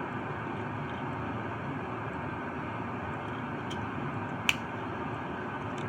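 Steady background hiss and low hum, with a single sharp click about three-quarters of the way through.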